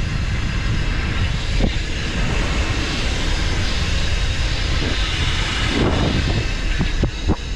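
Steady rushing wind buffeting the microphone, with rolling rumble from a bicycle being ridden. A few sharp clicks come near the end.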